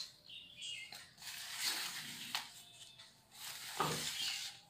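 Sheets of drawing paper being handled and shifted on a tabletop, rustling in three irregular stretches.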